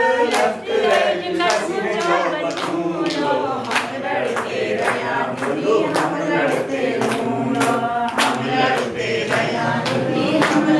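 A group singing a Kumaoni folk song together in chorus, with hands clapping a steady beat about twice a second.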